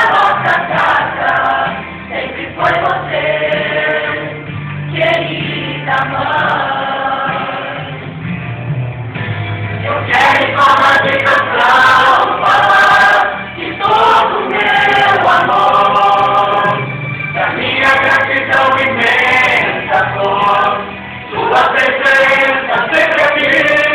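A choir of voices singing a gospel song about a mother, in long held notes over instrumental accompaniment with a steady bass line.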